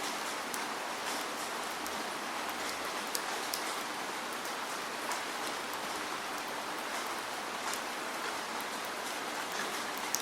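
Steady rain falling, with a continuous hiss and scattered individual drops ticking on a surface.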